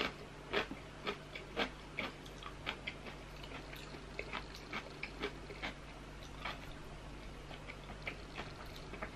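A person chewing soft food (boiled potatoes and fried mushrooms) close to the microphone: irregular wet mouth smacks and clicks, about two a second, a little louder in the first two seconds.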